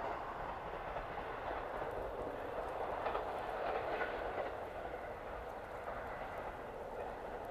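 A two-car diesel railcar running along the track: a steady engine and wheel-on-rail drone with faint clicks from the rail joints, swelling a little midway.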